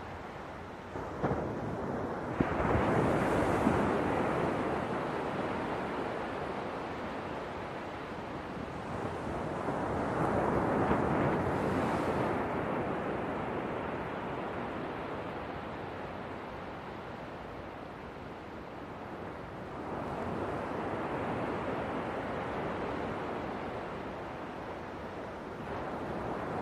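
Ocean waves breaking on the shore: a surge of surf swells and recedes every eight to ten seconds, three times, with a light rush of wind.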